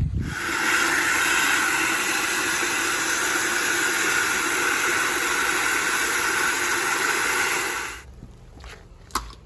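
Fuel pouring from a can's spout into the built-in fuel tank of a Yamaha 3 hp outboard, a steady rushing hiss that stops abruptly about eight seconds in. A single click follows shortly after.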